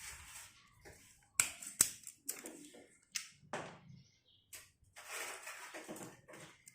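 Handling noises from wiring work: a series of sharp clicks and snaps, the two loudest close together about a second and a half in, followed by scraping and rustling as wires and hand tools are worked at a switch box.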